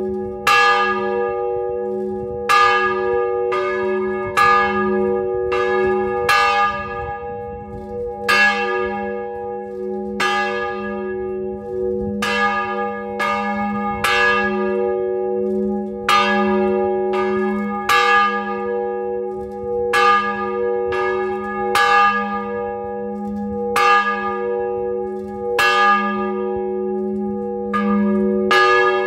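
The 1939 Pasqualini-cast church bells ringing close up in the belfry. Loud strokes come unevenly, about one a second, each leaving a long ringing hum that carries on under the next stroke.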